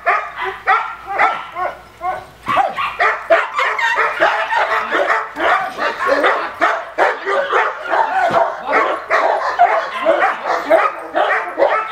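Male cane corso barking rapidly and without letup, several barks a second, coming faster after a couple of seconds. This is aggressive barking at a decoy during attack (protection) training.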